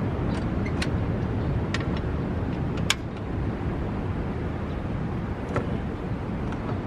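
Campfire with a few sharp crackling pops, the loudest about three seconds in, over a steady low rushing background.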